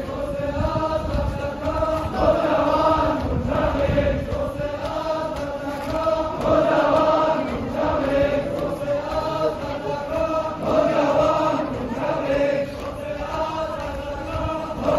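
A crowd of men chanting a Muharram mourning refrain in unison, the same short phrase repeated every couple of seconds, with dull thuds of hands beating chests (matam) underneath.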